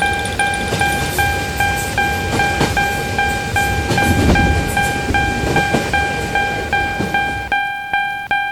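Japanese railroad crossing warning bell ringing its steady repeated clang, about two and a half strikes a second, while a train passes. The train noise stops about seven and a half seconds in and the bell keeps ringing.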